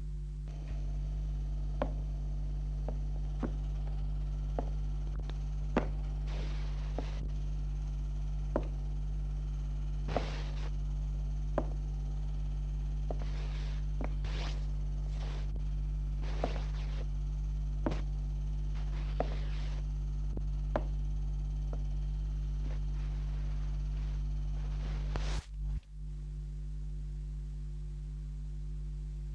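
Steady electrical hum in an old film soundtrack, with sharp clicks and pops about once a second and a few short bursts of hiss. The hum drops out for a moment near the end.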